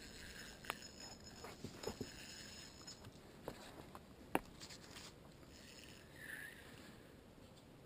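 Faint handling noise: a few small, sharp clicks and knocks over quiet background hiss, the sharpest about four and a half seconds in.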